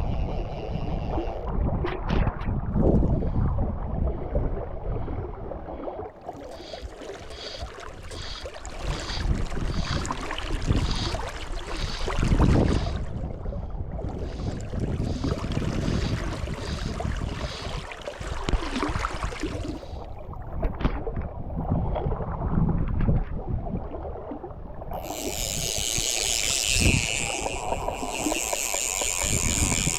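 Strong gusting wind buffeting the microphone over the rush of a high river, with long stretches of a higher hiss mid-way and again near the end.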